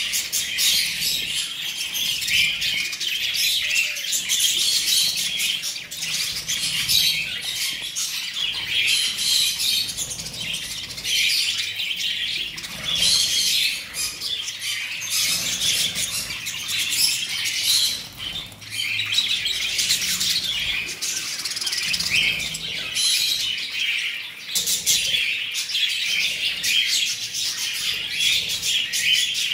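A large flock of budgerigars chattering and chirping nonstop while feeding, many birds calling over one another in a dense, high warble, with a few wing flutters.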